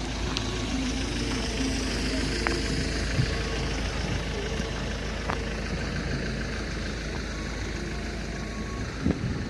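Excavator engine running steadily while digging out and grading ground.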